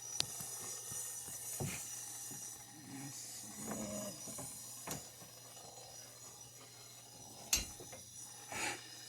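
A few separate clicks and knocks over a faint steady hiss, the loudest about two-thirds of the way in.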